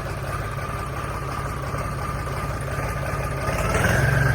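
Tractor engine idling steadily. Near the end it picks up speed and gets louder, with a whine that climbs in pitch.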